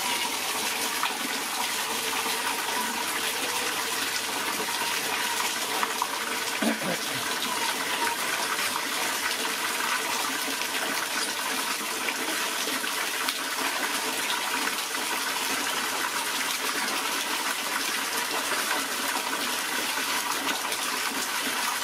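A steady stream of water pouring and splashing into a large stainless-steel basin of water.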